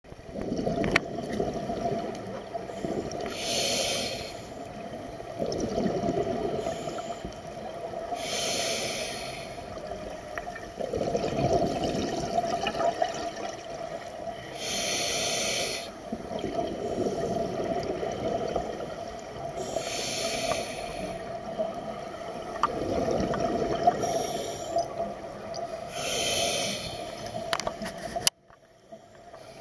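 Scuba diver breathing through a regulator underwater: six hissing inhales a few seconds apart, with a bubbling rumble of exhaled air between them. The sound drops out briefly near the end.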